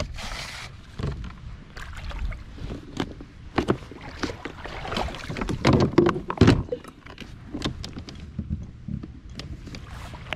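Irregular knocks and clatter against a kayak hull as things are handled aboard, loudest around the middle, after a short hiss at the start.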